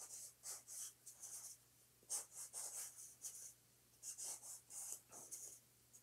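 Marker drawing zigzags on a cardboard toilet paper roll: a faint run of short scratchy strokes, pausing twice.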